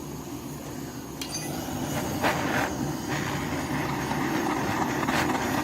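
Portable gas cartridge torch burning with a steady rushing flame noise that grows louder over the first couple of seconds, heating the boiler's lower half before it is tapped flat.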